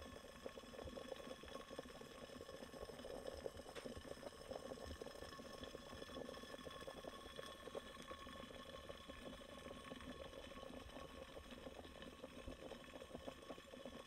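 Belgian balancing siphon coffee maker percolating: steam from the copper boiler bubbling through the siphon tube into the glass bowl of coffee and grounds, a faint, steady gurgling crackle.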